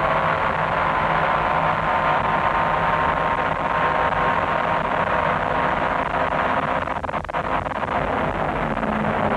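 Nissan R90CK's 3.5-litre twin-turbo V8, its wastegates stuck shut, running hard at high speed, heard from the cockpit over wind and tyre noise. The engine note holds steady, with a brief drop in level about seven seconds in.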